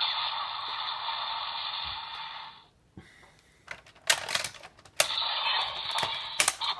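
Electronic sound effects from the Daikaiten Cannon toy's built-in speaker for the Blue Ressha. The toy sound cuts off about two and a half seconds in and gives way to several sharp plastic clicks as the toy is handled. The toy's sound starts again about five seconds in, with a couple more clicks near the end.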